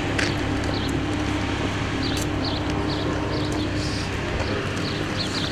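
Outdoor ambience: a steady low hum under a noisy background, with small birds chirping in short, high notes several times a second.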